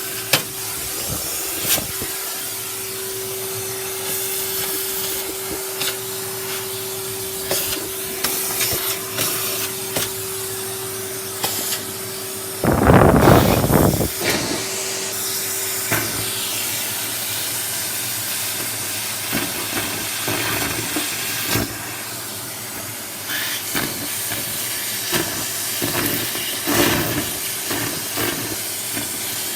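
A pot of soup boiling over on the stove, hissing steadily with steam, with a steady hum that fades out partway through. Scattered clicks and knocks of kitchen work, and a loud brief rush about 13 seconds in.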